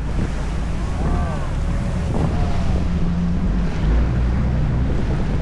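Sightseeing boat's engine running with a steady low rumble, water washing around the hull, and wind buffeting the microphone. Two short pitched calls break through about one and two and a half seconds in.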